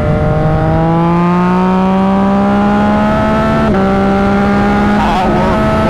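Yamaha XSR900's inline-three engine, tuned and breathing through a Spark titanium full exhaust, pulling hard under acceleration with its pitch climbing steadily. After about three and a half seconds there is a brief click and a small step in pitch, and then it holds steady at high revs.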